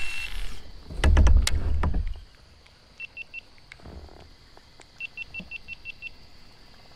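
An action camera's beeper, a GoPro powering itself off: three short high beeps of the same pitch, then a quick run of about seven more. Before the beeps, about a second in, there is a loud low rumble with clicks lasting about a second.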